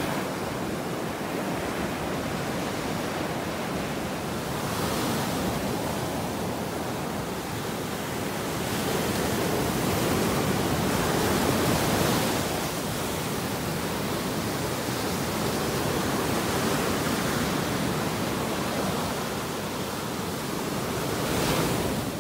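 Ocean surf breaking and washing up the sand: a steady rush that swells louder with the bigger waves, about five seconds in and again around ten to twelve seconds in.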